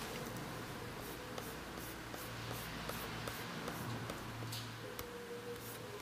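Faint scratchy strokes, two or three a second, with a few small clicks: a hand working a laptop's pointer and ticking an on-screen box, over a low steady hum.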